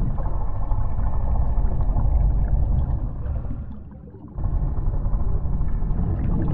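Sea-monster sound effect with underwater ambience: a deep, low rumble with gurgling, like a huge creature calling under water. It fades out a little before halfway, then cuts back in suddenly.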